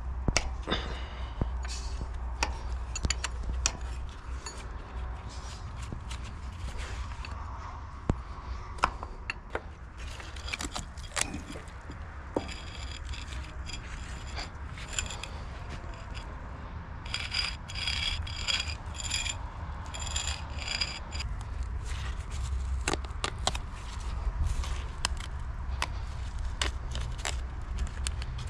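Metal tools and parts clinking, tapping and scraping during hand repair work on a vintage tractor. The clinks are scattered throughout, with bouts of jingling metallic ringing in the middle.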